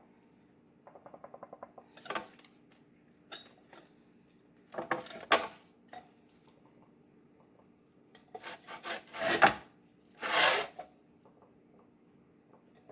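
Kitchen handling sounds while a pork roast is being seasoned: a quick run of rattling taps a little over a second in, then scattered rubbing and scraping of spice containers and hands on the meat, loudest about nine and ten seconds in.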